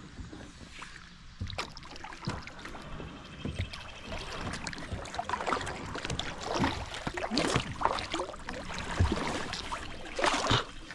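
Kayak paddling: a paddle dipping and splashing in creek water, with irregular splashes and drips that grow louder about halfway through.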